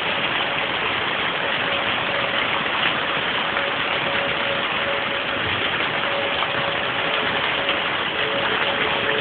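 Heavy rain and wind making a steady, loud rush. Behind it a distant outdoor tornado warning siren holds one tone that swells and fades as it rotates, and a second, lower siren tone joins near the end.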